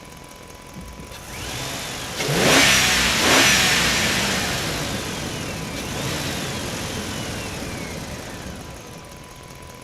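Truck engine driving through a parking garage, echoing off the concrete. It swells in quickly, is loudest about two to three seconds in as it passes, then fades slowly away.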